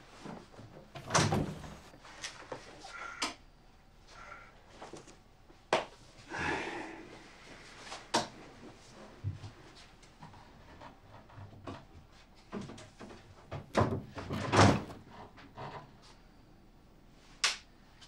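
Wooden wardrobe doors being opened and shut and things handled inside it: a series of separate knocks and clicks, the loudest about a second in and again around fourteen to fifteen seconds, with one last sharp click near the end.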